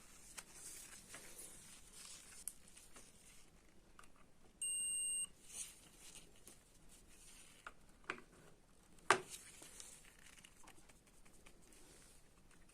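A single electronic beep, a steady high tone lasting about half a second, starting and stopping sharply about four and a half seconds in. Around it come faint handling clicks and taps, with one sharper click a little after nine seconds.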